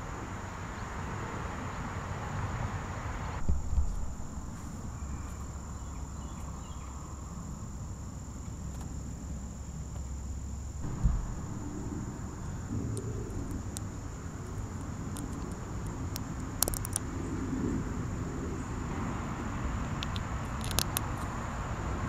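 Outdoor ambience with a steady high-pitched insect trill and a light background hiss. A few short knocks and small plastic clicks come and go as Lego pieces are handled and pressed together.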